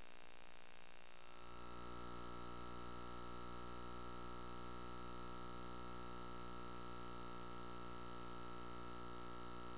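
Faint steady electrical hum and hiss from VHS tape playback, with no programme sound. About a second in, the low hum gets stronger and a steady high whine joins it.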